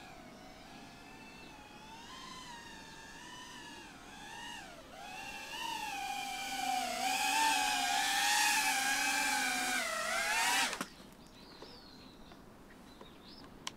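Motors and propellers of a BetaFPV Cinelog35 cinewhoop FPV drone in flight, a wavering whine whose pitch rises and falls with the throttle. It grows louder from about five seconds in, then cuts off abruptly about eleven seconds in.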